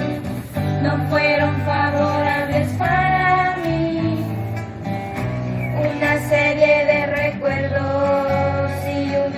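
A mixed group of young voices sings a traditional Salvadoran song, holding long notes of a second or two each, over acoustic guitar accompaniment.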